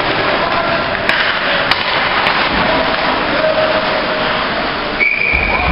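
Ice hockey rink noise of skating and play with two sharp clacks early on, then about five seconds in a referee's whistle blows one long steady blast, stopping play, as a low rumble starts under it.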